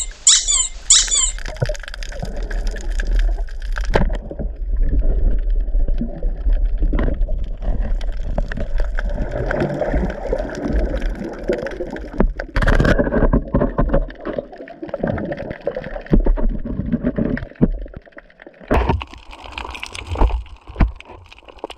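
Underwater sound through a speargun-mounted camera's housing: a low rumble and gurgling, bubbling water, with scattered knocks and bumps as the gun and its line are handled. Near the end the water sound turns thinner and crackly.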